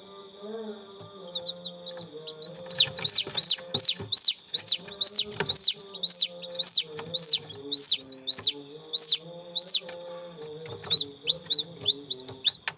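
Newly hatched chicken chick peeping loudly: a regular series of about two sharp peeps a second, breaking off, then a quicker run of peeps near the end. Background music and a steady high tone run underneath.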